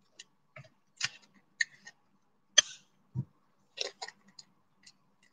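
Thin plastic piping cone filled with clay being folded and pressed shut at the back, crinkling in scattered short crackles and clicks, the sharpest about two and a half seconds in, followed by a soft low thump.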